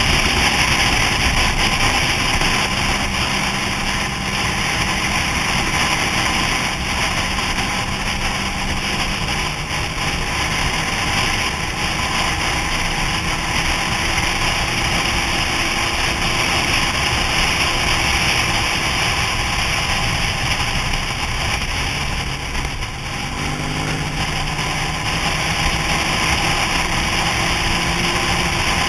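Motorcycle ridden at road speed: a steady rush of wind noise with the engine's hum under it. About 23 seconds in the engine note dips briefly, then climbs again.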